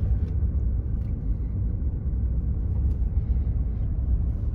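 Steady low rumble of a car heard from inside the cabin while driving: engine and tyre noise on the road.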